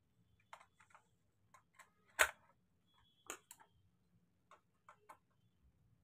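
Faint, scattered plastic clicks and taps from handling a toy RC car's battery compartment as its cover is fitted and screwed down with a small screwdriver, with one sharper click about two seconds in.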